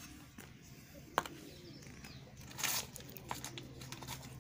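Faint handling noises: a sharp click about a second in, a brief rustle a little past the middle, and a few light ticks.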